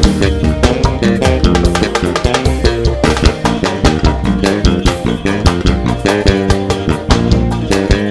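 Swingueira (pagodão baiano) band music: a dense, fast percussion groove with a prominent electric bass line moving underneath.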